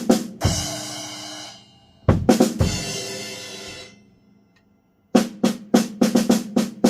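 Yamaha Recording Custom birch snare drum, muffled with a ring on the batter head, played in a drum kit. Snare hits are topped by two cymbal crashes with bass drum hits, each ringing out for over a second. After a short pause, a fast run of even snare strokes starts about five seconds in.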